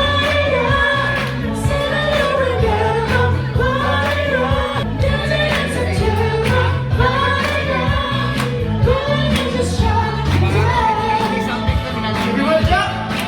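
A song with a singing voice over backing music, with a steady beat and bass line.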